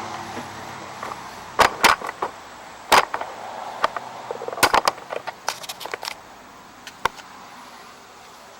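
A scattered series of sharp clicks and knocks, about a dozen, from hard objects being handled while the snowblower is filled with oil. A faint steady background noise fades away in the first second.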